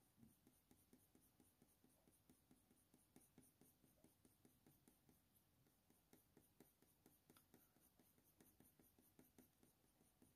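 Faint, quick, short strokes of a Faber-Castell Polychromos coloured pencil scratching on hot-press watercolour paper, a light irregular ticking of many strokes a second as the fur is darkened.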